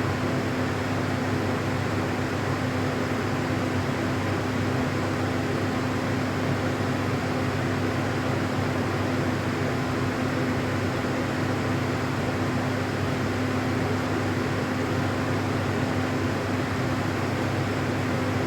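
A steady hum with a constant hiss, unchanging throughout, with no shots or other sharp sounds.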